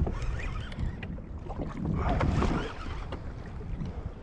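Wind buffeting the microphone over water lapping and splashing against a plastic kayak hull on a choppy sea, with a few small knocks.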